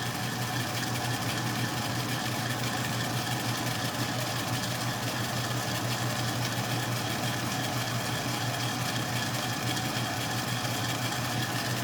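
Atlas 10-D metal lathe running steadily with no cut being taken: an even motor-and-spindle hum, which the owner says sounds a little tired.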